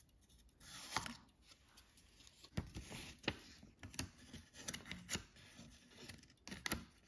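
Faint rustling and sliding of a paper chart being pulled off a barograph's brass drum, with a handful of small, sharp clicks and ticks from the paper and fittings.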